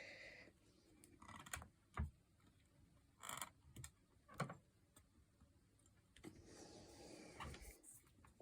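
Faint scattered clicks and taps of watercolour brush and palette being handled, with a soft brushing hiss in the last couple of seconds as the brush works on the paper.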